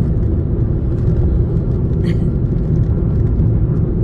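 Steady low rumble of a car's engine and tyres on the road, heard from inside the cabin while driving, with one short hiss about two seconds in.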